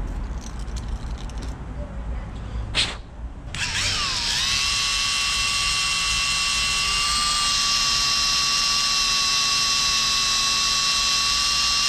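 A handheld drill-type power tool spins up about three and a half seconds in, runs at a steady high whine for about eight seconds, and winds down at the end, cleaning off carbon. A single sharp click comes just before it starts.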